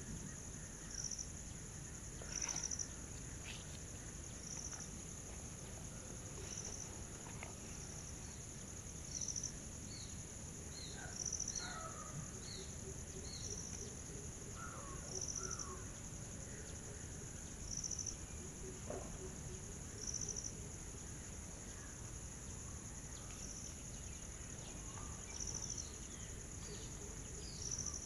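Outdoor insect chorus: a steady high-pitched drone of insects, with a short chirp repeating about every two seconds, and scattered brief bird chirps.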